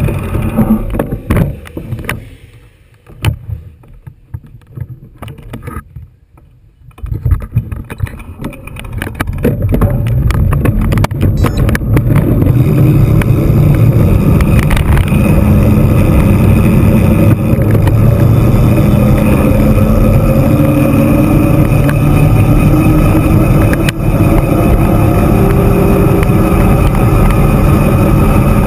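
Wind rushing over the microphone as an electric mountain bike rolls down a paved mountain road. It starts with a few knocks and gusts, then becomes a steady loud rumble from about ten seconds in as the bike picks up speed.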